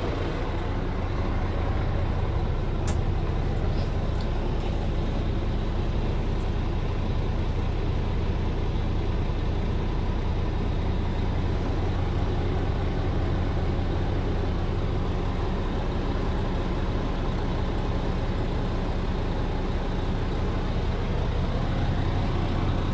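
Scania G480 truck's diesel engine idling steadily, heard from inside the cab, with one sharp click about three seconds in.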